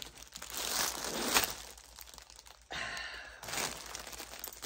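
Plastic packaging crinkling and rustling as a bagged hammock is handled and set down on a table, with a sharp knock about a second and a half in.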